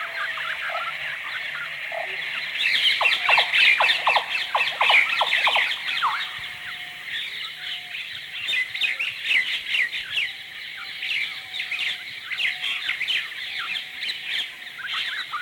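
Bird chorus sound effect: many small birds chirping and twittering in rapid, overlapping calls. The chorus swells about two and a half seconds in, with a run of quick downward-sliding chirps, and continues busily to the end.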